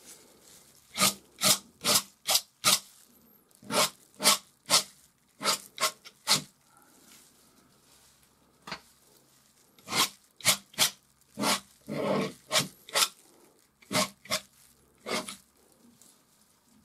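Steel palette knife scraping oil paint in short, quick strokes, about two to three a second, in runs of three to eight with short pauses between.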